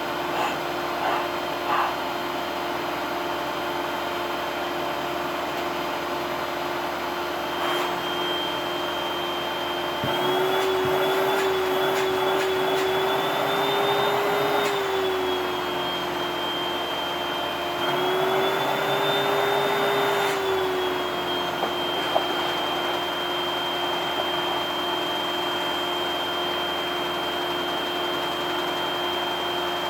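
Vacuum cleaner motor running steadily with a high whine. Twice its pitch rises a little and it gets louder, for about five seconds from ten seconds in and for about three seconds a little later, then it settles back to the steady run.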